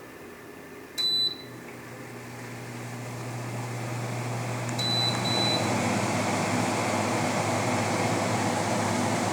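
Frigidaire FRA123BU1 window air conditioner starting up: a short high beep from its control panel about a second in, then a low hum and fan airflow building gradually over several seconds. Another beep comes near five seconds in, after which the fan runs steadily and louder.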